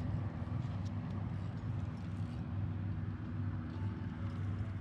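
Steady low rumble of passing road traffic.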